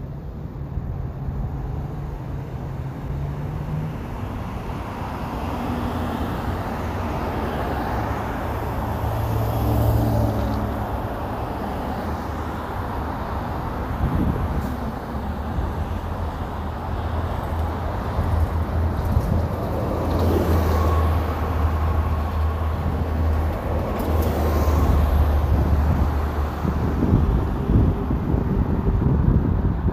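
Road traffic: vehicle engines humming and passing, the sound swelling and fading as they go by, with a low engine drone that grows louder in the second half.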